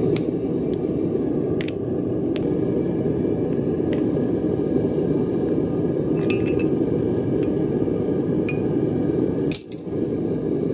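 Cast aluminum ingots and steel tongs clinking against metal ingot molds as the ingots are lifted out: a series of sharp, separate clinks. Under them runs a steady low roar, the propane foundry furnace's burner.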